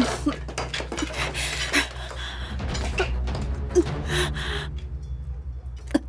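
Dramatic background music with a low steady drone, under breathy gasps and a few sharp knocks and clinks.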